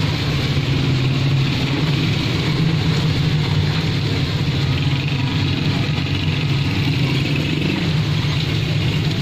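A motor vehicle engine running steadily at a low pitch, with a steady hiss over it from the wet street.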